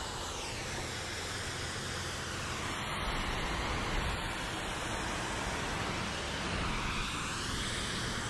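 Pressure-washer spray rinsing a car's hood and windshield: a steady hiss of water striking the paint and glass, growing a little louder a couple of seconds in.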